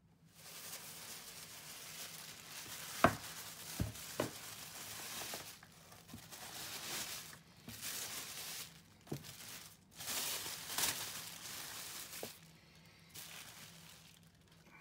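Thin plastic carrier bag rustling and crinkling in irregular stretches as it is handled and laid over dough balls, with a few sharp knocks about three and four seconds in.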